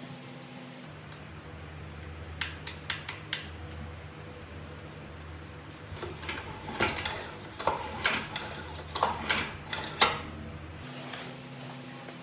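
Sharp clicks and knocks of hard plastic and metal parts being handled on a small engine: about four quick clicks, then a busier run of clicks and light knocks, the loudest near the end. Under them is a steady low hum.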